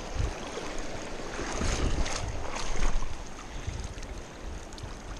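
Shallow creek riffle running, with water splashing and sloshing around a dip net swept through the current and a person wading, loudest about one and a half to three seconds in. Wind rumbles on the microphone underneath.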